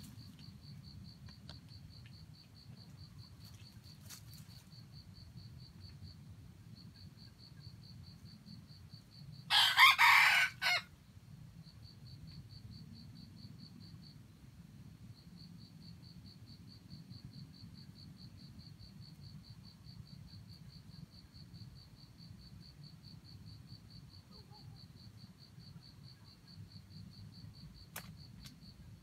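A junglefowl rooster crows once, a short loud crow of about a second, about ten seconds in. An insect keeps up a fast, steady, high trill.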